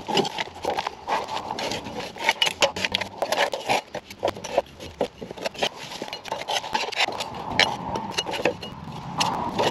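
A hand scraper scraping caked, wet grass clippings off the underside of a Country Clipper mower deck in quick, irregular strokes.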